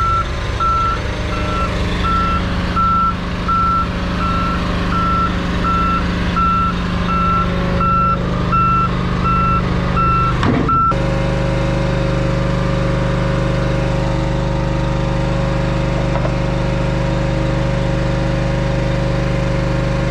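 Semi truck's reverse alarm beeping at one pitch, about three beeps every two seconds, over its diesel engine as it backs up. The beeping stops about halfway through and the engine keeps running steadily.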